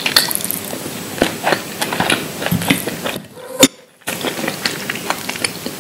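Close-miked chewing of crunchy food such as raw cucumber, kohlrabi or peanuts, a dense run of wet crackles and crunches. About three seconds in there is a brief pause with one sharp, loud crack, then the crunching resumes.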